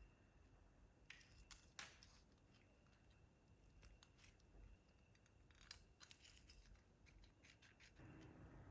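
Very faint, scattered small clicks and snips from small hand tools at work, irregularly spaced with a few sharper ones.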